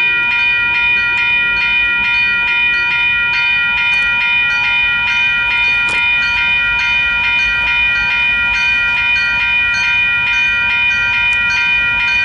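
Railroad crossing warning bell ringing in a fast, even rhythm, its crossing signals triggered by an approaching train, with a low rumble underneath.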